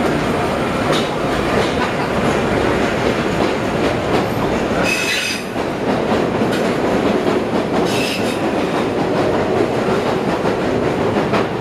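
1992 Morrison-Knudsen 3200-series CTA rapid-transit car pulling out and running past the platform, a steady loud rumble of wheels on rail. Two short high wheel squeals come about five and eight seconds in.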